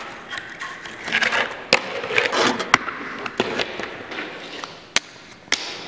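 Fingerboard rolling on rough concrete ramps, its small wheels making a rushing, gritty noise, broken by several sharp clacks as the board pops, lands and knocks against the surface.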